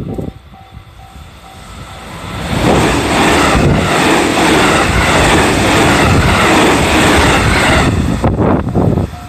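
Freight train passing over a level crossing: a loud rushing rattle of wheels on rails. It builds up about two seconds in, holds steady, then drops off sharply near the end.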